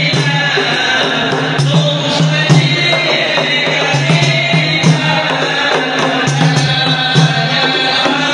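Group of men chanting a wedding song over beating frame drums, with sharp drum strokes cutting through the voices.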